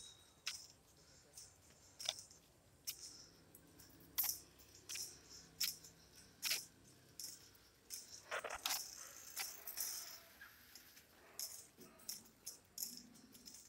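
Faint, irregular light clicks and taps, one or two a second and busiest about two-thirds of the way in: a toddler's sandalled footsteps on a concrete path.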